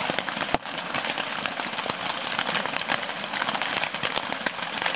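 Steady rain falling: a dense hiss with many small drop hits. There is a single sharp click about half a second in.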